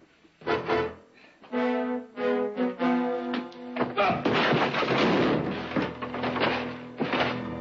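Dramatic orchestral TV score with short, punchy chords. From about four seconds in, a rapid run of loud thuds and crashes, typical of a staged fistfight, rises over it.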